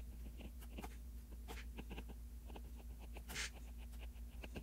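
Light taps and scratches of handwriting on an iPad touchscreen, coming as a string of short ticks over a faint low hum, with one short breathy noise a little past three seconds in.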